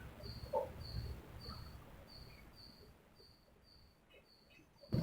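Faint, high-pitched chirp repeating evenly about three times a second over a low background rumble.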